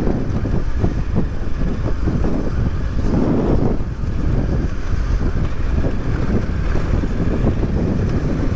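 Wind rushing over the microphone with a KTM 1090 Adventure motorcycle's V-twin engine running underneath, riding a rough dirt track, with frequent short knocks from the bumps.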